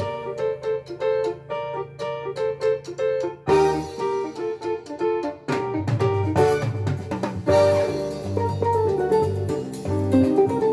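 Recorded music playing from a Sansui CD-V350 CD player through a Pioneer A-301 amplifier and a pair of speakers. Quick, short repeated notes play, then a held chord, and a bass line comes in about five seconds in.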